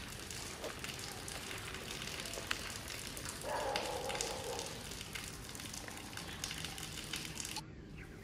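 Crackling and rustling of dry leaf litter, a dense patter of small clicks, with a louder, lower rustle for about a second from three and a half seconds in. Near the end the sound cuts abruptly to a duller background.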